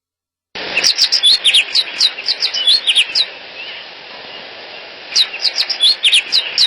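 Small songbird chirping: quick runs of short, falling chirps over a steady hiss. It starts about half a second in and breaks off for a couple of seconds in the middle before starting again.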